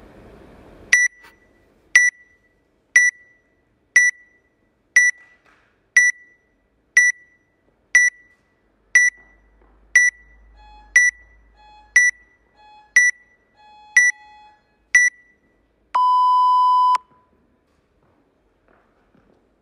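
Workout countdown timer beeping once a second: fifteen short high beeps, then one long lower beep about a second long that signals the start of the workout.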